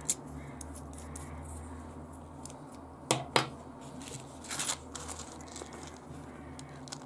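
Small metal clicks and clinks of a precision screwdriver handle and its steel bits being handled in their case: two sharp clicks a little after three seconds in, then a short rattle of lighter ones about a second later.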